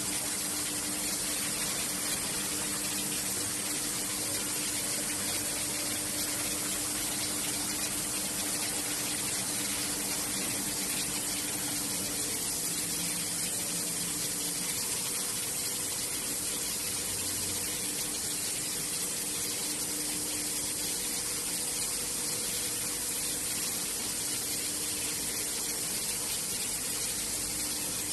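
Two-station rotary wheel rim polishing machine running: a steady, even hiss with a low hum underneath.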